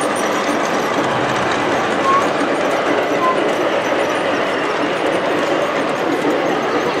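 Steady babble of a crowded exhibition hall, with a G-scale model freight train rolling past on its track.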